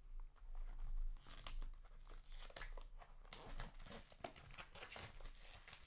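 A trading-card booster display box being opened by hand: tearing and crinkling of its wrapping, with scattered small clicks and rustles.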